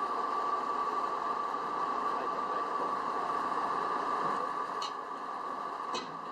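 Two wheel loaders running steadily while holding a load up on their raised buckets, a steady high whine over the engine noise. Two sharp clicks come near the end.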